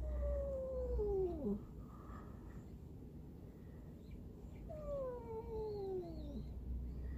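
Black stray cat giving two long, low moaning '우우웅' (woo-oong) calls, each sliding down in pitch. The first comes right at the start and the second about four and a half seconds in.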